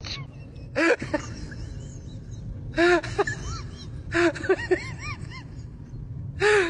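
A sleeping pit bull-type dog snoring in bursts roughly every one and a half to two seconds, each breath trailing off into a few short squeaky tones.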